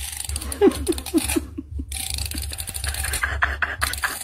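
A fine-toothed flea comb raking through a tabby cat's fur, a quick run of short scratchy strokes and clicks.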